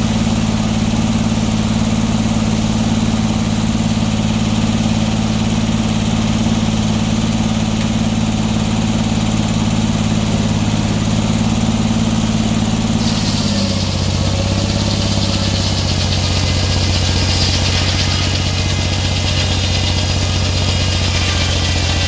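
Sawmill engine running steadily. About two-thirds of the way through its pitch drops and a higher hiss of sawing joins in: the blade is entering the log and the engine is taking the load.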